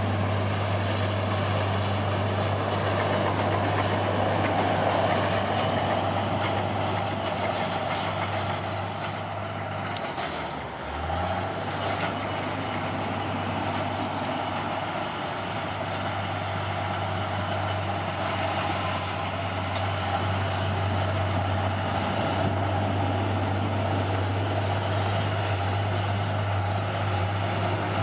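Caterpillar D6R bulldozer's diesel engine running with a steady low drone, briefly dipping in pitch and level about ten seconds in before picking back up.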